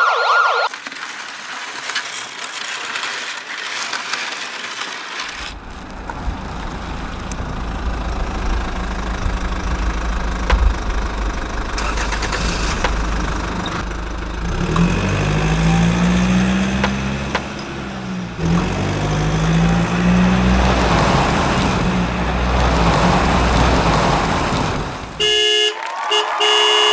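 Vehicle sounds: a low engine rumble that starts a few seconds in and revs up and down through the middle, then short horn toots near the end.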